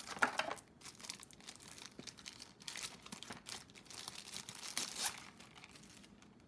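Packaging being handled and unwrapped: irregular crinkling and rustling with some tearing, loudest at the start and dying away near the end.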